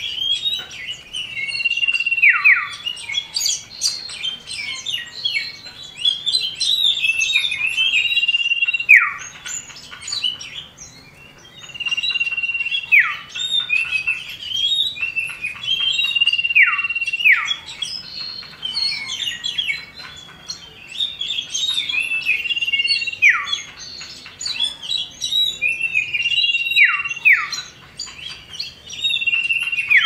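Common iora (cipoh) singing: a long level whistle that drops steeply in pitch at its end, given six times, with quick chattering chirps between.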